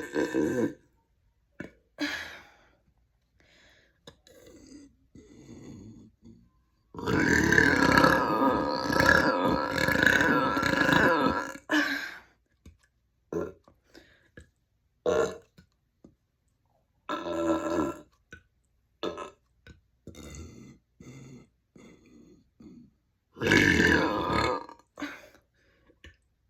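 A series of deliberate burps: a short one at the start, a long wavering drawn-out burp of about five seconds in the middle, then two shorter ones later, with small clicks in the pauses between.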